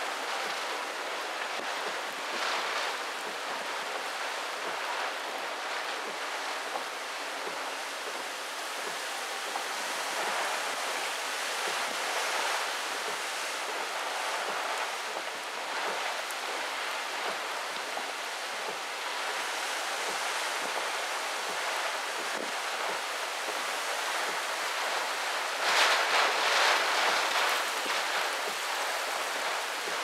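Typhoon wind and heavy rain making a steady rushing hiss, swelling into a stronger gust near the end.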